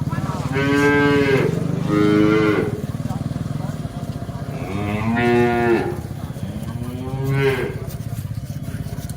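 Cattle mooing four times, in two pairs of calls each about a second long, over a steady low hum.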